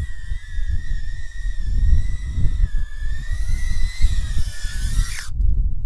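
High-pitched whine of a tiny whoop drone's brushless motors and propellers, wavering in pitch with the throttle and stopping abruptly about five seconds in, as when the motors are cut. Wind buffets the microphone with a low rumble throughout.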